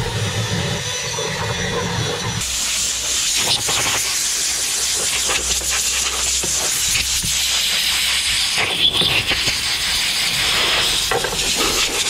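Compressed-air blow gun hissing in long, steady blasts, starting about two seconds in and briefly easing off near nine seconds.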